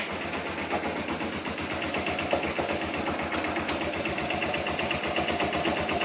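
BM Classic 200 motorcycle engine idling steadily with a fast, even knock from the clutch assembly, which the owner puts down to low-quality oil.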